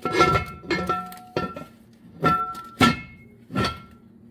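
Heavy cast-iron Dutch oven lid knocking against its pot about seven times, each clank ringing briefly.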